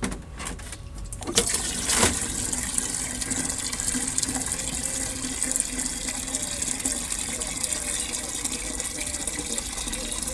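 Water running from a water butt's tap into a plastic watering can, a steady fill that begins about a second and a half in after a few clicks as the tap is opened, and stops at the end.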